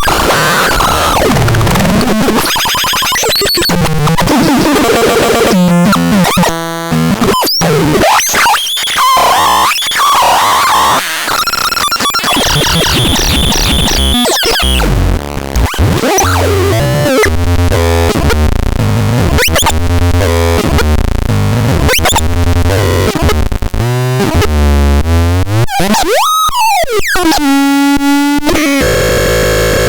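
XAPEDAX electronic noise instrument producing harsh, chaotic synthesizer noise: glitchy buzzing tones and stepped pitch sweeps that keep changing, with a deep hum joining about halfway and a quick sweep up and back down near the end.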